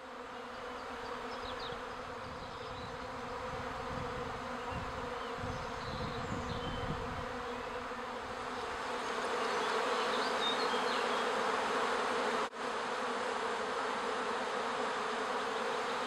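Steady, dense buzzing of a wild honeybee colony, many bees in flight at the nest under a roof eave, growing louder about halfway through. The sound briefly cuts out about twelve seconds in.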